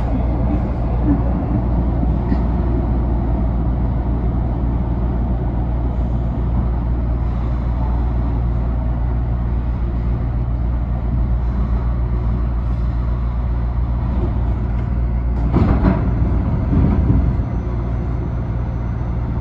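Steady low rumble of a SEPTA Broad Street Line subway train in the station, with a louder burst of noise for about a second and a half, some 16 seconds in.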